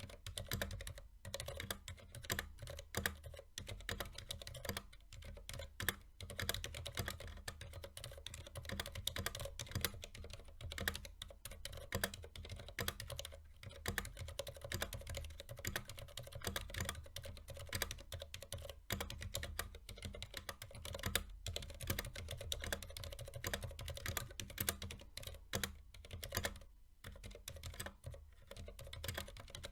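Continuous typing on a mechanical keyboard with Cherry MX Silent Black switches, 60 g linear switches whose rubber dampeners soften both the bottom-out and the return. The keystrokes come as a dense, irregular run of soft, muted clacks with brief pauses between bursts, and the keycaps make a low thock.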